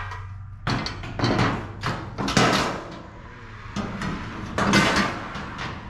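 Sheet-metal quarter panel rattling, scraping and knocking against the car's body shell as it is worked into place, in three bursts of a second or so each.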